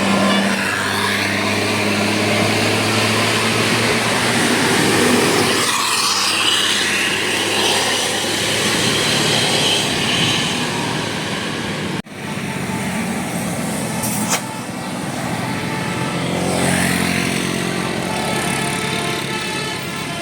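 Large diesel buses running past at close range: a steady low engine drone under a rush of tyre and air noise that swells and fades twice. The sound breaks off abruptly about twelve seconds in and then resumes.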